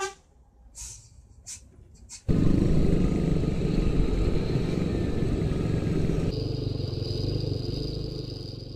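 A few short swishes in near quiet, then about two seconds in a loud vehicle engine and road rumble start suddenly and run on. A thin, high steady tone joins about six seconds in.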